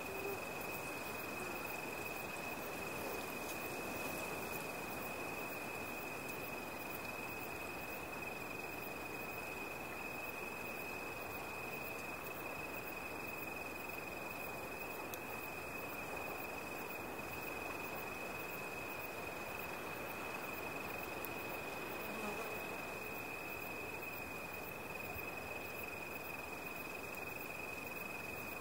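Night ambience of crickets: one continuous, unbroken high trill over a soft steady hiss.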